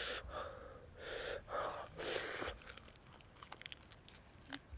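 A man breathing hard in and out about four times in the first two and a half seconds, then faint clicks from his mouth as he bites into a piece of roast duck.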